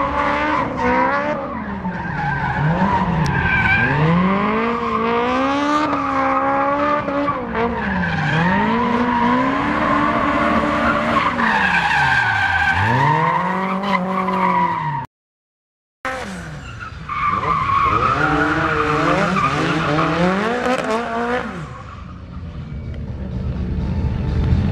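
A car engine revved hard and repeatedly, its pitch climbing and falling every second or two as the car is thrown through a cone course, with tyre squeal over it as the tyres slide. The sound cuts out completely for about a second past the middle, then another hard run follows.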